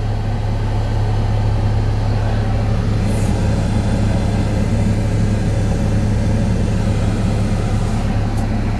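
Steady low engine hum of an idling vehicle heard from inside its cabin, an even drone with no changes.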